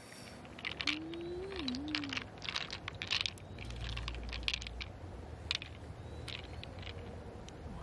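Quick irregular clicks of green pearls knocking against each other and the shell as fingers pick them out of an opened mussel's flesh, mostly in the first five seconds. A short wavering tone sounds about a second in.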